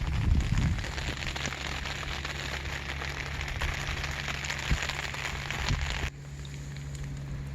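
A steady, fine crackling patter over a low, even hum. The patter drops away abruptly about six seconds in, leaving only the hum.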